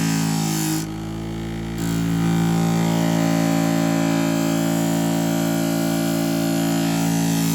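Scissor-sharpening machine's electric motor running with a steady hum while a knife blade is ground and polished on its 1200-grit abrasive. The sound dips briefly about a second in, then returns.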